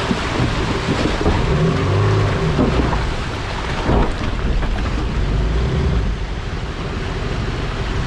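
Rushing water from a fast, rocky river, steady throughout, with a 4WD's engine running underneath as a low rumble.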